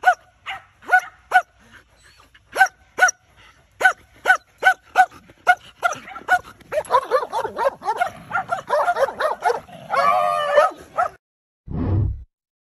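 Collie barking in a string of short, high barks that crowd together into rapid, overlapping barking about six seconds in, ending in a longer wavering cry around ten seconds. A short low thump follows near the end.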